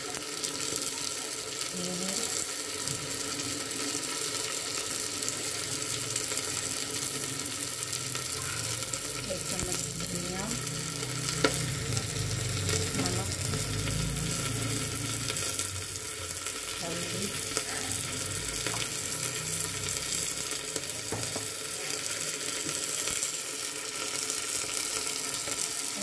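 Onions, tomatoes and peas sizzling in hot mustard oil in an aluminium pressure cooker: a steady frying hiss, with one sharp click about eleven seconds in.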